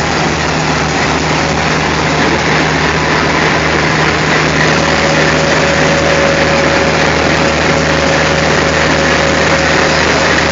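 WDM-series diesel-electric locomotive engine running steadily at close range, a loud even drone with a deep throb. A faint steady whine rises over it from about halfway through.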